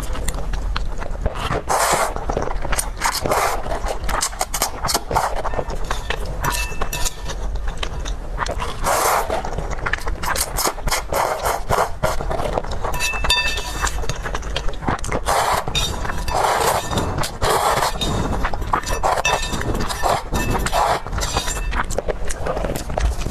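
Close-miked eating of desserts: repeated biting and chewing, with a steady run of crisp clicks and crunches.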